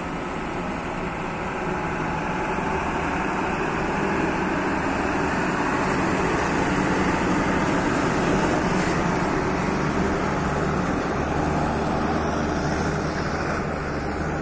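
Diesel engine of a Mira intercity bus running as it pulls away and drives past close by. The sound grows louder toward the middle as the bus passes, then fades as it moves off.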